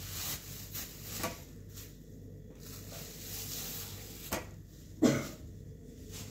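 A few scattered light knocks and clicks, the loudest one about five seconds in, over a faint steady low hum.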